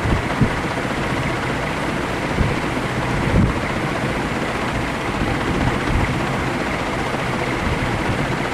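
56-inch agricultural ceiling fan running, a steady rush of moving air, with occasional low gusts buffeting the microphone.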